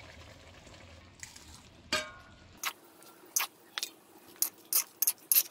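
A metal spatula stirring and clinking against an iron wok of finished chilli meat sauce over a faint stove hum, with one sharper clink that rings briefly. After that comes a run of sharp, irregular knocks, about two a second.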